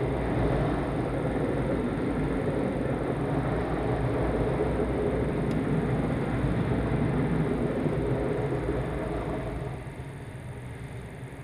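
Automatic car wash running over the car, heard from inside the cabin: a steady rushing of water and machinery that drops off about ten seconds in.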